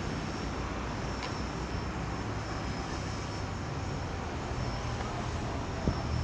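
Steady outdoor background noise: a low rumble with hiss, a faint high tone that comes and goes, and a faint click or two.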